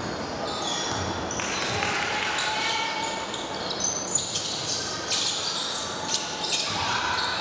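A basketball bouncing on a hardwood gym floor during play, with short high sneaker squeaks, in a large gym.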